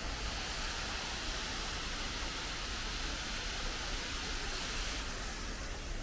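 Water pouring down a waterfall: a steady, even rushing hiss, slightly softer in the last second.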